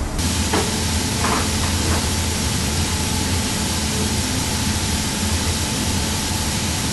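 Steady machine noise: a loud even hiss over a low hum and a faint steady whine, with a few light knocks in the first couple of seconds.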